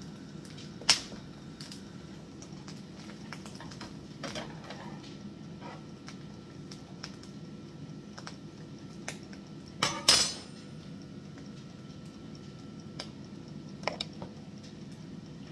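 Slotted spatula scraping and knocking against a frying pan as an egg-coated sandwich is turned and pressed, over a steady low background hum. The loudest knock comes about ten seconds in, with a sharp one about a second in and a few lighter taps between.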